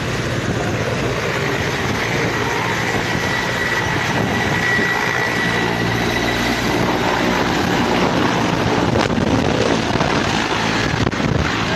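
Mi-17 military transport helicopter lifting off close by: steady, heavy rotor and twin-turbine noise, with a high turbine whine that swells through the first half and then fades as it climbs away.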